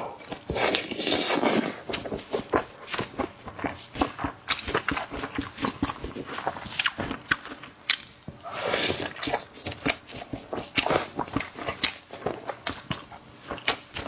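Close-miked wet chewing and lip smacking while eating braised meat: a rapid run of moist clicks, with a few longer hissing stretches about a second in and again around nine seconds.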